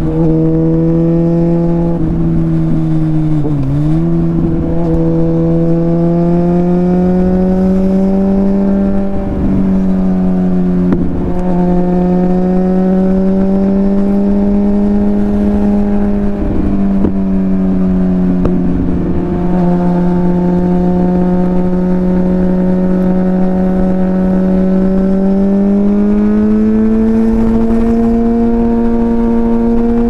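Suzuki GSX-R1000's inline-four engine running under way at steady revs, its pitch drifting slowly up and down with the throttle. The revs dip briefly about three and a half seconds in and climb gradually near the end.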